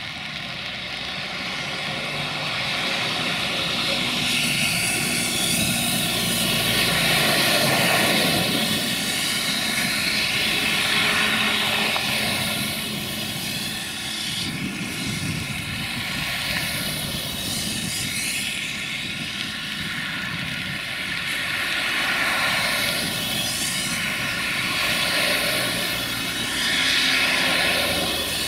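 Quadcopter drone's motors and propellers whining steadily, with a rushing noise that swells and fades every few seconds.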